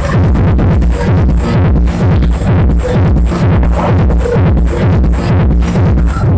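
Electronic dance music with a steady beat and heavy bass, played loud through a mobile-disco sound system driven by a FET power amplifier.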